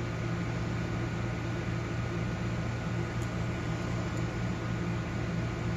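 Steady mechanical hum, like a room fan or air conditioner, with a low drone. Two faint ticks come about three and four seconds in.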